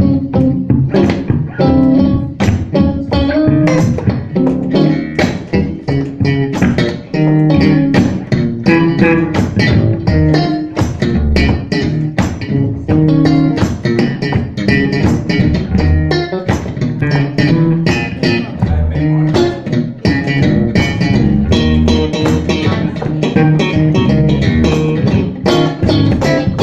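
Live blues band playing: guitar and bass guitar with a steady beat.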